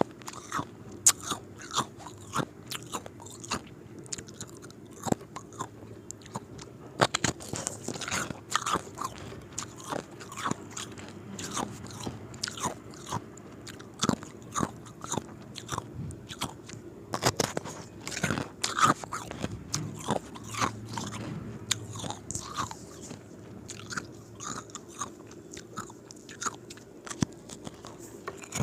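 Square ice cubes being bitten and chewed, a run of sharp, irregular crunches.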